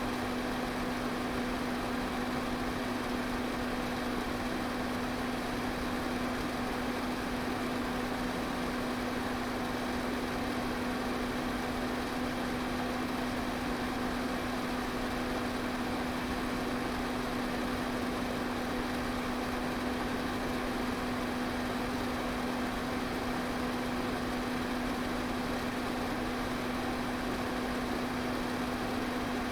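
Electric fan running steadily: an even rush of air with a low, constant motor hum.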